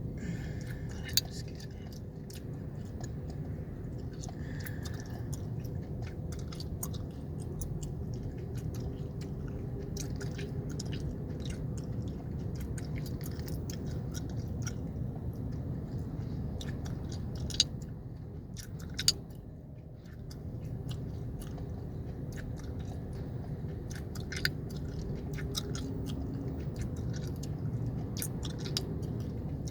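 Gum chewing close to the microphone: irregular wet smacks and clicks, with a few louder snaps, over the steady low hum of a car cabin.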